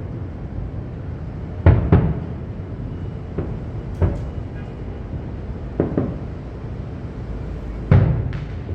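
Fireworks shells bursting: a series of sharp booms at uneven intervals, about seven in all, some in quick pairs, each with a short echoing tail, over a steady low rumble.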